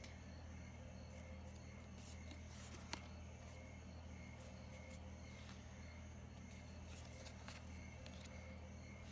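Faint handling of a stack of Pokémon trading cards: light clicks and rustles as cards are moved and restacked, with one sharper tick about three seconds in, over a steady low hum.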